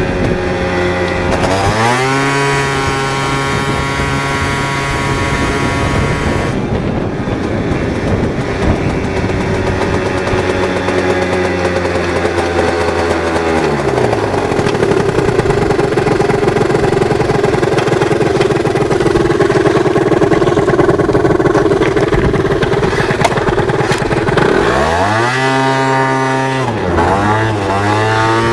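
Peugeot Jet Force scooter engine with a tuned Laser exhaust, accelerating under full throttle. The revs climb about a second in and then hold at a flat, steady pitch, typical of a speed/rev limiter (Speedotronic) capping them, before falling away halfway through. Near the end it revs up sharply twice.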